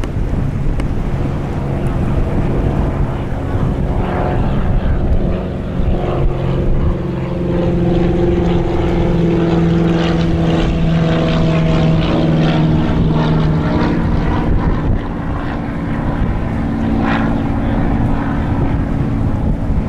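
Wind buffeting the microphone over a steady engine drone that comes in about four seconds in and shifts slightly in pitch partway through.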